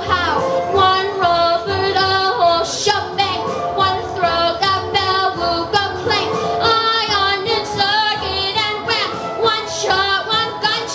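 A young girl singing into a handheld microphone: a solo show-tune vocal with long held notes that bend and waver in pitch.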